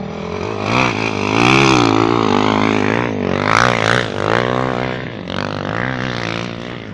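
Motocross motorcycle engines revving up and down, their pitch rising and falling over and over, loudest about one and a half to two seconds in.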